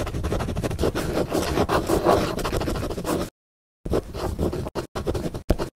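Pen scratching across paper as a handwriting sound effect. It runs in one long stretch of about three seconds, stops dead, then comes back in several short strokes.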